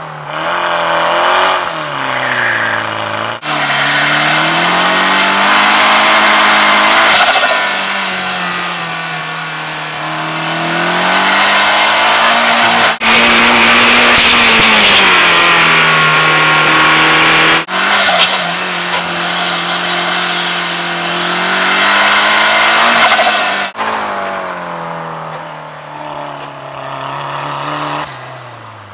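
Puma Clubman race car's engine at full throttle, heard from onboard. Its pitch climbs and then drops back again and again as it is driven hard through the gears, and it eases off near the end.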